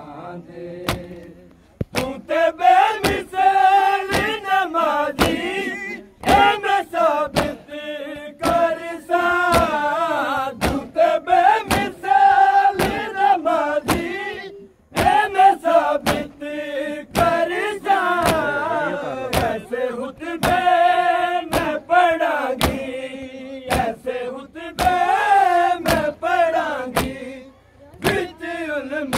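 Men singing a noha (Shia mourning lament) in chorus. Sharp, steady slaps of hands on chests (matam) come less than a second apart, keeping time with the chant.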